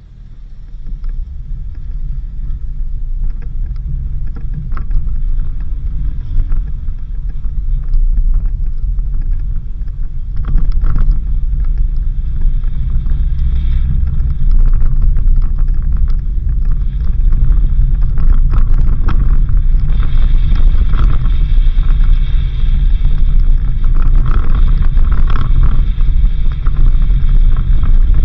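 Suzuki Jimny driving on a dirt road: a steady low engine and road rumble with scattered knocks and rattles, growing louder over the first dozen seconds and then holding.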